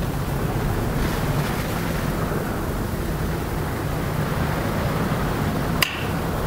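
Steady rushing of wind and sea surf, with a single sharp click near the end.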